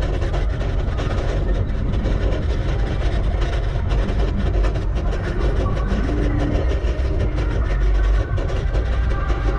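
Steady wind rush and deep rumble on the microphone of a Garmin Virb action camera on a moving bicycle, with a run of small rattles from the bike on the trail surface.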